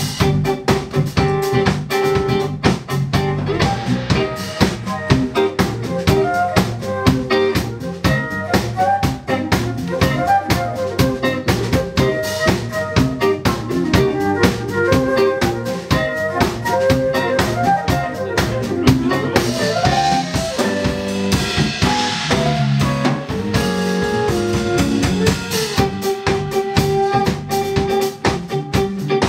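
A live jazz band playing: a drum kit keeps a busy beat under electric bass, electric guitar and flute.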